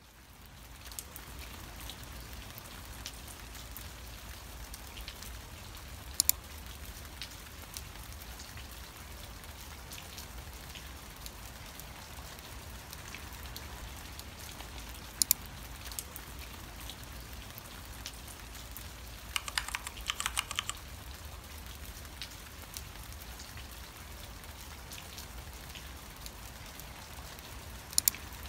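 Computer use: three single mouse clicks spread apart, and a short quick run of keyboard typing about two-thirds of the way through, over a steady hiss with a low hum.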